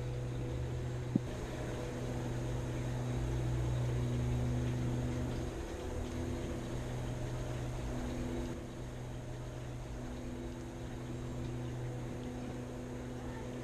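Steady low engine-like drone, its pitch shifting slightly twice, with a single sharp click about a second in.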